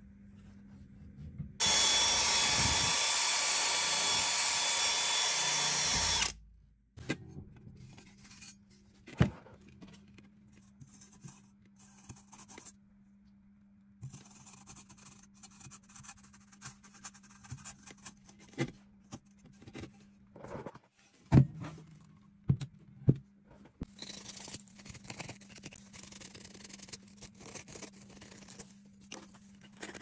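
A small electric motor runs steadily for about five seconds and then stops, winding down. After it, scattered clicks and knocks of metal boiler parts being handled, over a faint steady low hum.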